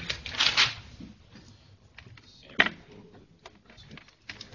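A brief rustle, then one sharp knock about two and a half seconds in, with a few faint ticks.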